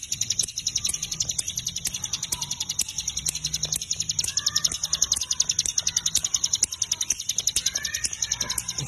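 Cigun (ciblek gunung) songbird calling in a fast, steady run of dry high ticking notes, many a second, with a few short chirps mixed in.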